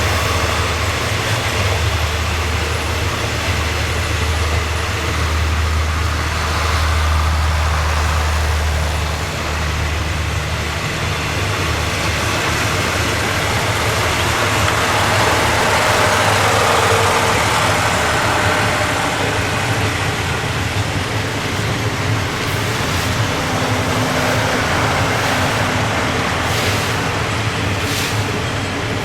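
A State Railway of Thailand passenger train made up of ex-Japanese 24, 14 and 12 series coaches running, with a steady low hum and continuous running noise; the hum is strongest for the first several seconds and then eases.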